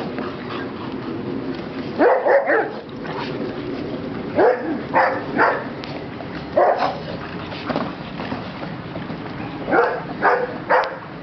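Dogs barking during group play, in short single barks and quick runs of two or three, with gaps of a second or two between them.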